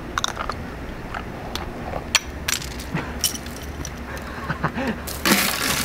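Ice on a frozen folding aluminium lawn chair clinking and snapping in scattered sharp ticks as the chair is lifted and handled, with a louder rush of crackling ice about five seconds in.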